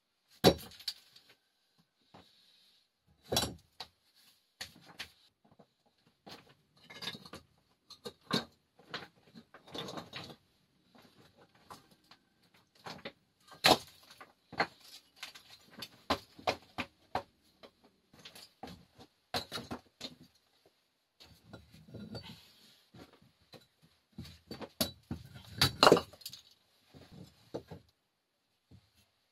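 Irregular knocks and clinks of hard objects being handled, with a few louder strikes about half a second in, near the middle and late on.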